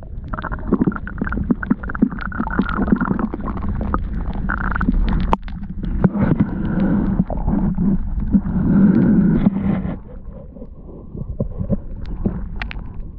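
Muffled underwater sound of river water moving past a submerged camera, with many small knocks and bumps from the camera and hands moving in the water. It becomes quieter about ten seconds in.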